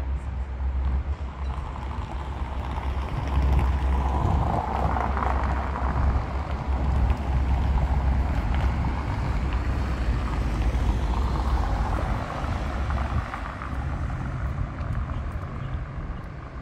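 Road traffic passing, swelling and fading twice: once about four seconds in and again about eleven seconds in. Under it runs a low wind rumble on the microphone.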